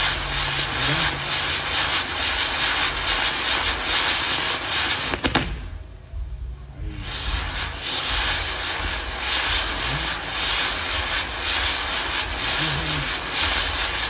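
Fireworks castle burning: a dense, steady hiss and crackle of sparks from its spinning pyrotechnic pieces. About five seconds in there is a sharp crack, and the hiss drops away for a second or two before picking up again.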